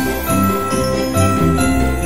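Background Christmas music with jingle bells ringing over steady melody notes and a pulsing bass line.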